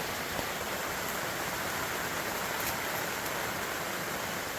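Heavy rain pouring steadily, an even hiss of falling water.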